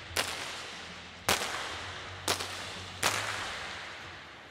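Four .22 rimfire target pistol shots from several competitors firing on a 50 m range, about a second apart. Each is a sharp crack followed by a decaying echo.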